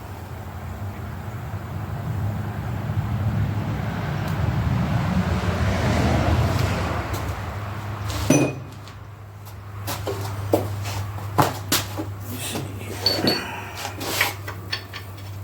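Metal clatter of hand tools and engine parts being handled: a swelling rush of noise over a steady low hum, a sharp knock about eight seconds in, then scattered clinks and taps.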